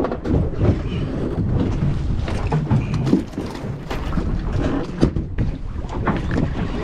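Wind buffeting the microphone and the sea around a small boat, a steady rumbling noise, with scattered knocks and clatter, the sharpest about five seconds in.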